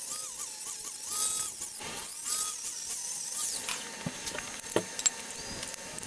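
Power tool working metal in two short runs of high, hissy whine, followed by a few sharp clicks and knocks.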